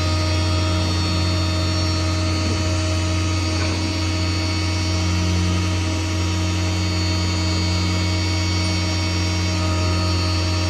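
A tow truck's winch drive running steadily during a recovery, a loud, even mechanical hum with a steady whine above it.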